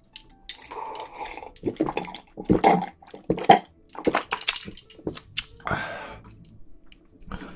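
A person gulping a drink down in quick swallows straight from a glass bottle, close to the microphones, with wet clicks in the throat and mouth, then a breathy exhale about six seconds in. This is drinking to cool the mouth after food that is too spicy.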